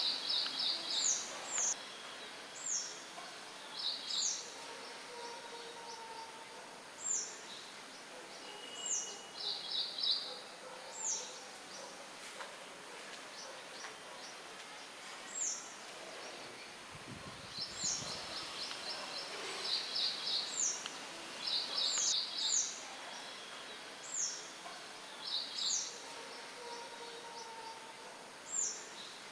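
Songbirds chirping: short, high, falling whistles and quick trills every second or two, over a steady hiss of light wind in the leaves.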